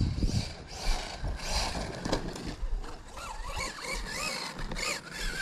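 Electric RC truck's motor whining, its pitch wavering up and down with the throttle from about halfway in, over low wind rumble on the microphone.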